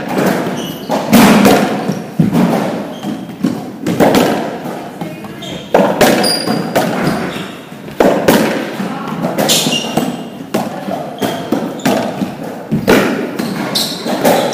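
Racquetball rally: the rubber ball is struck by racquets and smacks off the court walls and floor. Sharp impacts come about every second or two, each echoing in the enclosed court.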